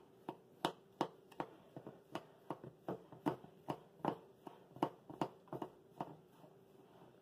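Buttered graham cracker crumbs being stirred by hand in a glass bowl, with sharp clicks against the glass about three times a second.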